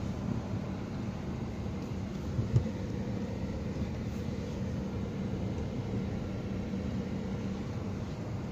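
Steady car cabin noise as the car rolls slowly with its engine running, a faint hum under it. A single short thump about two and a half seconds in.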